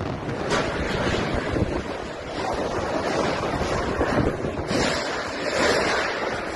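Storm wind gusting, a loud rushing noise that swells and eases, with the wind buffeting the microphone.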